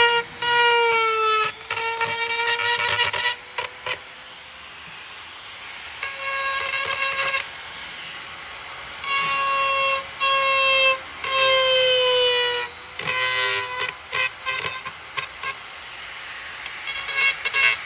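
A handheld power tool whines at high speed in repeated bursts of one to two seconds, switching on and off about eight times, its pitch sagging slightly as it bites. It is grinding the layers of a plastic truck emblem down to the chrome backing.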